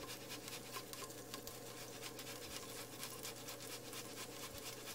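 Fresh ginger rasped on a microplane grater in quick, repeated scraping strokes, faint. Under it runs a steady faint hiss from the pot frying garlic in oil.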